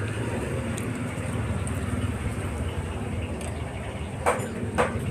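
Steady low rumble of passing vehicle traffic, with two short sharp clinks near the end.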